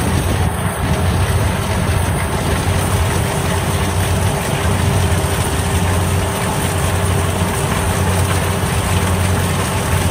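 Kubota DC-60 combine harvester's diesel engine running steadily, a loud, constant low drone.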